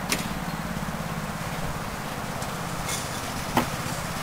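Small engine of a miniature railway locomotive running steadily with a fast, even chug, during fly-shunting. Two sharp clicks break over it, one just after the start and a louder one near the end.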